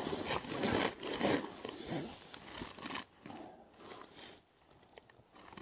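Nylon shell of a down sleeping bag rustling and crinkling as it is thrown open and pushed aside, loudest in the first couple of seconds and then quieter.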